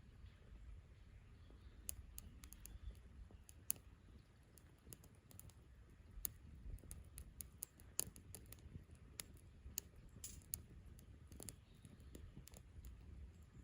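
Wood fire crackling, with irregular sharp snaps; the loudest come about 4 and 8 seconds in.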